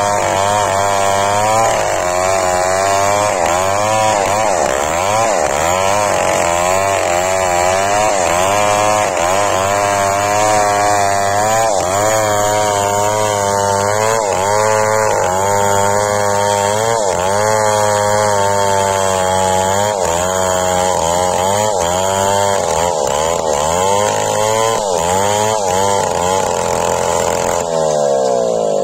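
Two-stroke petrol chainsaw ripping a teak log lengthwise, running under load at high throttle. Its engine pitch wavers up and down as the chain bites into the wood, and the pitch rises near the end.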